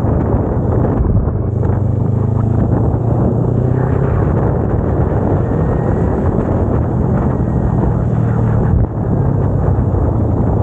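Kawasaki Ninja 250R's parallel-twin engine running steadily as the bike rides along, with wind noise on the microphone. The engine note dips briefly about nine seconds in.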